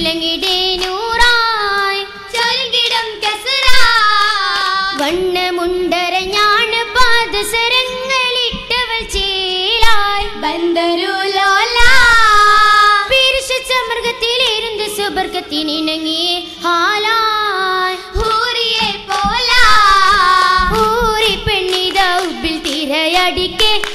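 A group of girls singing a Mappila oppana song together, with sharp hand claps keeping the rhythm.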